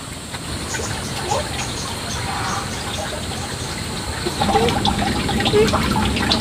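Water running and splashing, with small clicks and knocks throughout.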